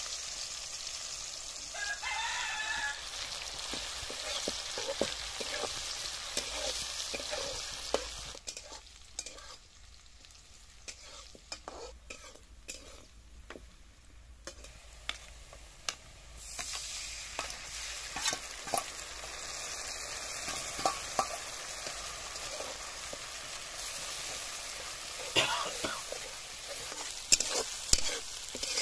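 Onions and spice paste sizzling in hot oil in a black iron kadai, with a metal spatula scraping and clicking against the pan as it is stirred; the sizzle drops low for several seconds midway, then returns. A rooster crows once about two seconds in.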